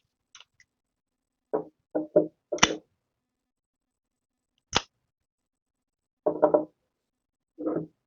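Short knocks and clunks of locking pliers (vice grips) being handled and clamped onto a screw jammed into a leaf blower's crank seal, with one sharp click about halfway through.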